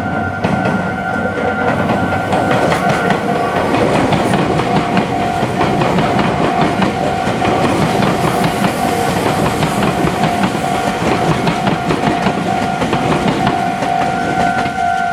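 A Meitetsu electric train running through a level crossing, its wheels clattering over the rail joints. Throughout, the crossing's warning bell rings on with a steady, repeating tone.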